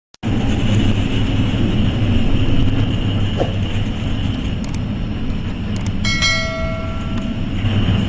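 Steady low roar of storm wind and heavy seas battering a ship's bow. About six seconds in there are two brief clicks and a short bell-like chime.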